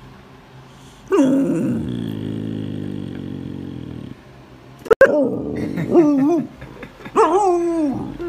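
A husky-type puppy vocalizing: a long rough growling grumble that starts about a second in and fades out about four seconds in, then, after a sharp click, a few wavering howl-like calls that rise and fall in pitch.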